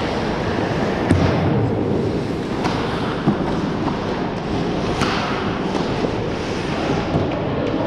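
Ice hockey game on the rink: a steady rumble of skating and rink noise, broken by a few sharp knocks of play, the loudest about a second in.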